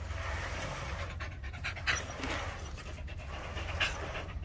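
A dog panting steadily, with two brief louder sounds, one about two seconds in and one near the end.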